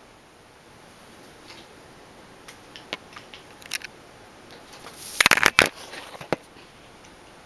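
Kitten's claws clicking and skittering on a hard vinyl floor as it dashes after a laser dot: a few scattered ticks, then a quick burst of rapid clicks a little past halfway, and one more tick just after.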